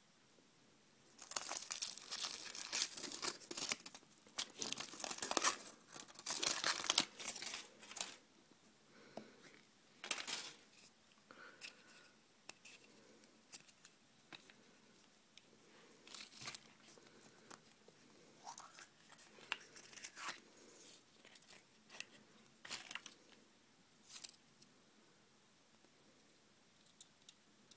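Thin foil wrapper of a chocolate surprise egg being peeled off and crumpled, a dense crinkling for several seconds. After that come scattered sharp crackles and clicks as the chocolate shell and the plastic toy capsule inside are opened, dying away near the end.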